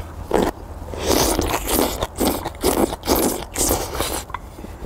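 Close-up eating sounds of someone eating spicy ramen mixed with Chapagetti noodles: a quick run of loud mouth noises, about two a second, from about a second in until near the end.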